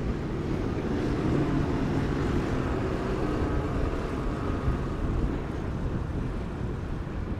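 Inland motor cargo ship passing, its diesel engine a low steady drone with a faint hum over it, mixed with wind buffeting the microphone.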